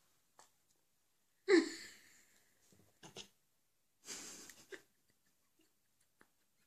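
Two short, forceful bursts of breath, like sneezes or snorts: a sharp loud one about a second and a half in, fading quickly, and a softer, breathier one about four seconds in.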